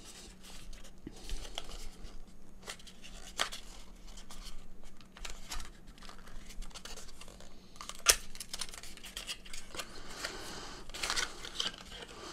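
Hands handling a small cardboard box: scraping and rustling of the card with light clicks, one sharper click about eight seconds in, as a short USB-C cable is taken out of it.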